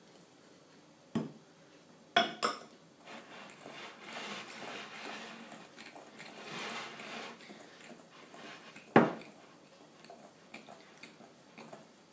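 A utensil stirring flour into a butter, sugar and egg mixture in a glass mixing bowl: soft scraping, with sharp knocks of the utensil against the glass about a second in, twice near two seconds, and once about nine seconds in.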